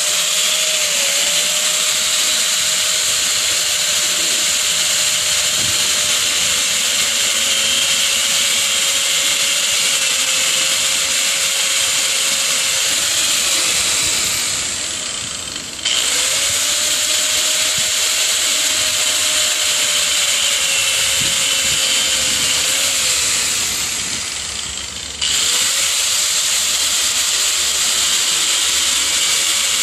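Small handheld power tool running at high speed while cutting PVC pipe, with a steady whine. Twice it winds down over a couple of seconds and then starts up again.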